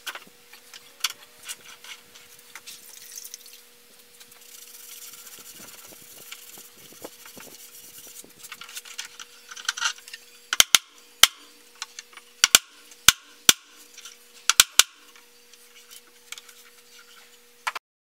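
Steel pipe clamps being handled and adjusted on a clamped-up wooden panel: rubbing and scraping, then a run of about a dozen sharp metallic clicks from about ten seconds in. A faint steady hum runs underneath.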